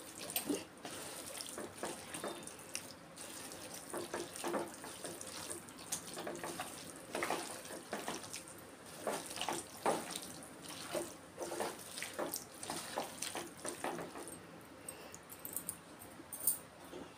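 A hand squishing and kneading raw chicken pieces with yogurt, sliced onions and spice paste in a clay pot, in irregular strokes. The sounds thin out over the last few seconds as the mixing stops.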